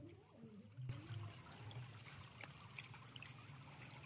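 Faint, steady trickle of water, starting abruptly about a second in.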